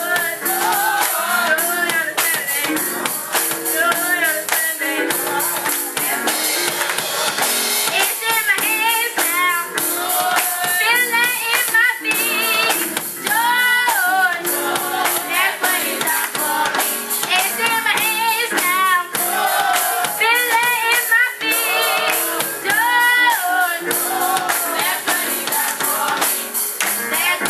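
Youth choir singing a gospel song with vibrato, over a steady clapping and percussion beat.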